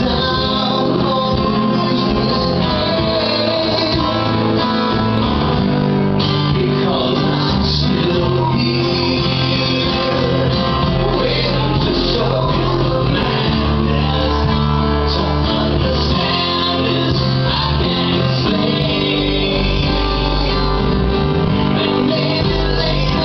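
Live band playing a song on an electric guitar and two acoustic guitars, with singing, through the club's PA.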